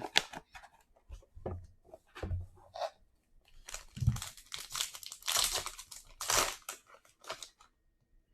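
Wrapper of a trading-card pack being torn open and crinkled, in irregular crackling bursts with a few soft thumps, loudest about five to six and a half seconds in and stopping shortly before the end.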